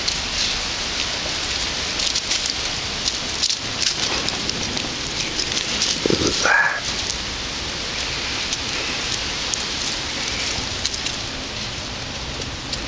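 Steady crackling hiss throughout, with a puppy's short rising whine about six seconds in.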